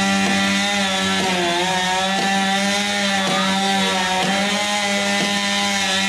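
Chainsaw running at steady high revs, with a brief dip in pitch about a second and a half in.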